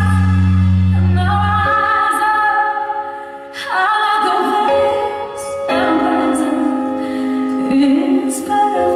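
A woman singing a slow ballad live into a handheld microphone over instrumental backing, holding long sustained notes. There is a brief drop in loudness about three and a half seconds in before she comes back in.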